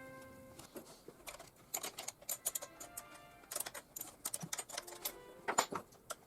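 Soft background music under a run of sharp, irregular clicks and taps, which start about a second in and grow denser, the loudest a little before the end.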